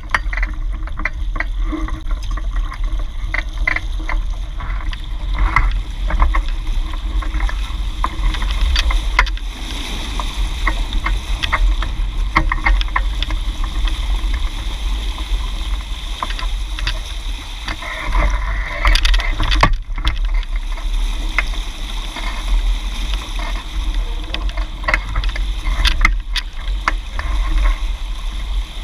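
Hobie 16 catamaran under sail, its hulls rushing through choppy water with frequent small splashes, over a heavy rumble of wind buffeting the camera microphone.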